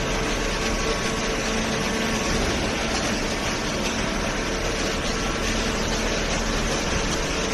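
Horizontal hydraulic waste-paper baler running: a steady machine hum with a faint held drone over an even mechanical hiss, from its hydraulic pump and motor.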